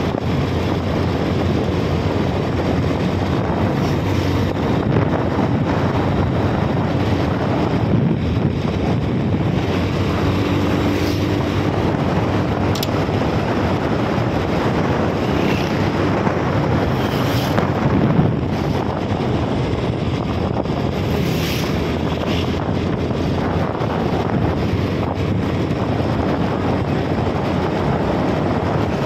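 Wind rushing over the microphone over the steady noise of a moving vehicle.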